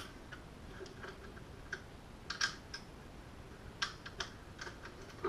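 Allen key working screws loose on a sector antenna's adjustable mounting bracket: scattered, irregular light clicks and ticks, a few louder ones around the middle.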